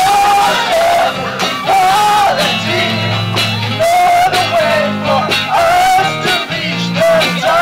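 Live rock band playing loudly through a PA: guitar, bass and drums with a wavering sung melody from male voices over a steady drum beat.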